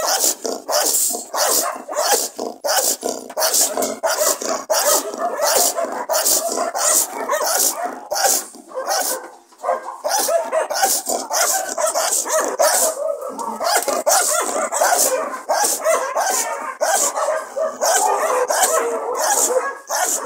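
Dutch shepherd bitch barking aggressively and without letup, about two barks a second, with a short break about nine seconds in: a protective mother guarding her puppies.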